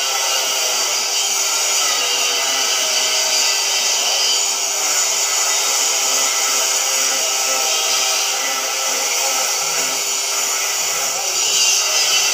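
CNC cutting torch hissing steadily as it cuts through 80 mm steel plate for a flange, with a faint steady machine hum underneath.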